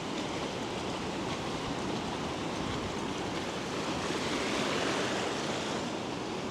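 Pacific Ocean surf washing onto a beach: a steady rush of breaking waves that swells a little about four to five seconds in.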